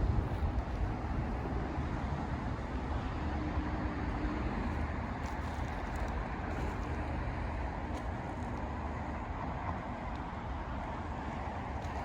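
Steady low outdoor background rumble.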